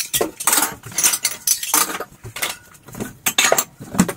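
Clean plates and dishes clinking and clattering as they are unloaded from a dishwasher and stacked away: a string of irregular sharp clinks and knocks.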